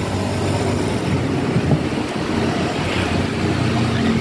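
Steady motor-vehicle traffic noise with a low engine hum.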